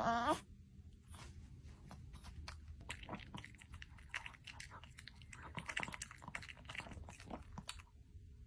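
A small chiweenie dog licking and chewing mango from a little bowl, close to the microphone: a run of quick, irregular wet slurps and smacks that stops about eight seconds in.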